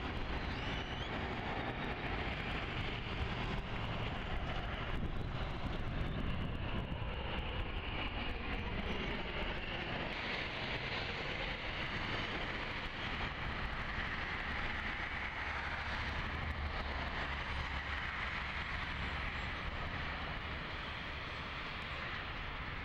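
Steady jet noise from a Boeing 737's turbofan engines as the airliner descends on final approach and flares to land.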